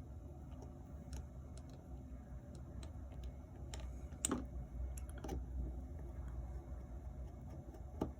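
Light, scattered clicks and ticks of small tools and plastic RC damper parts being handled, over a steady low hum. A louder click comes about four seconds in and another near the end.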